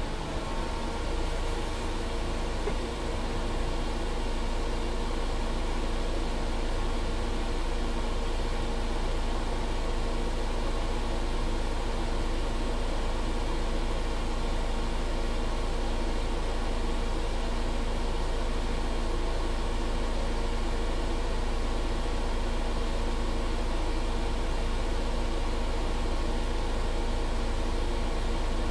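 2021 MAN Lion's City 12C EfficientHybrid bus running steadily: a low rumble under an even, fan-like rush with a few steady tones, no rise or fall in pitch.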